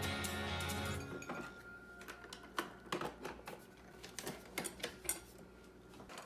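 Light clicks and clattering knocks of kitchen items being handled, about a dozen spread over several seconds. A steady hum with several held tones stops about a second in.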